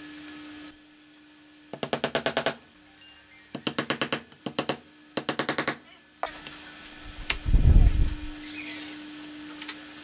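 Steel hammer driving a nail into a stack of wooden boards on a workbench: four quick runs of rapid, evenly spaced blows in the first half. A sharp click and a heavy low thud on the bench follow near the end.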